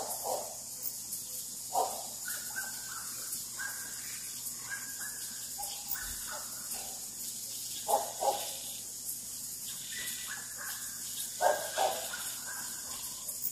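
Rural nightfall chorus of insects and frogs: a steady high-pitched insect drone throughout, with loud short calls every few seconds, often two close together, and fainter higher chirps in between.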